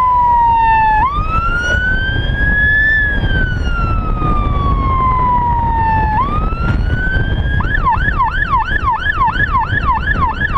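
Emergency siren on an ambulance motorcycle sounding a slow wail that rises and falls in long sweeps, then switching to a fast yelp of about three sweeps a second near the end. A low rumble of the moving bike runs underneath.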